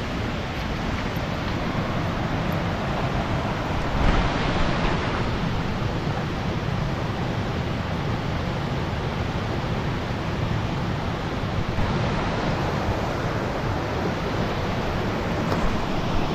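Rushing stream water: a steady, even rush of noise that swells briefly about four seconds in.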